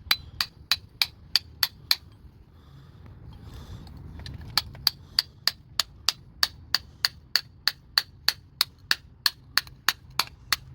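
Hammer blows on a rusted part of a Lexus RX300 exhaust, to break the rust free, at about three sharp, ringing blows a second. A short run of about seven is followed by a pause of two to three seconds, then a longer run of about twenty.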